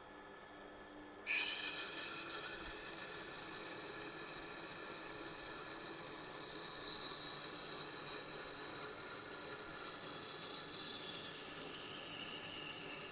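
Knife edge being ground on a Tormek T8's SG-250 wet grinding wheel: a steady wet hiss of steel on the turning stone that starts suddenly about a second in and stops near the end.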